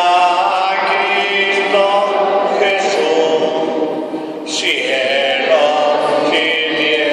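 A group of voices singing a slow church hymn, holding long notes.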